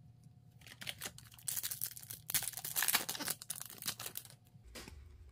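Upper Deck hockey card pack wrapper crinkling and tearing as it is ripped open, from about a second in until about four seconds in.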